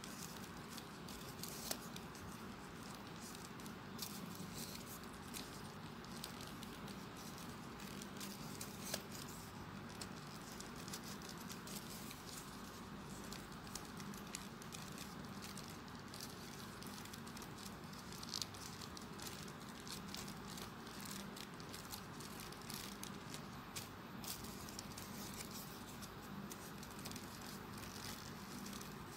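Folded paper units of a 3D origami model rustling and ticking as they are handled and slotted into place, in many small, irregular clicks over a steady low hiss.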